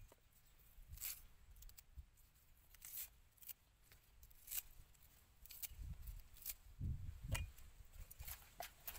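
Knife slicing fresh green herb stems held in the hand, faint short crisp snicks, the cut pieces dropping into a wooden mortar. A few soft low thumps come about two-thirds of the way through.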